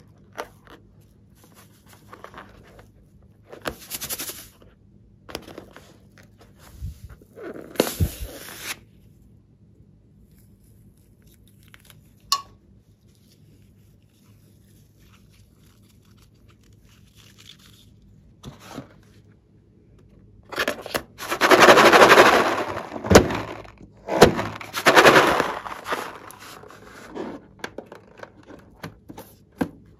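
Close-up handling of rubber balloons filled with glitter over slime: scattered rubbing and crackling rustles, with a loud stretch of a few seconds about two-thirds through, as the glitter is squeezed out of a balloon onto the slime.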